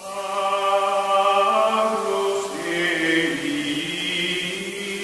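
Choral chanting: several voices holding long notes, with the pitch shifting about halfway through.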